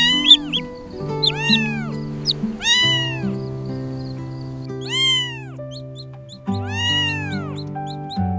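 Cat meowing repeatedly, about six drawn-out meows that each rise and fall in pitch, over gentle background music.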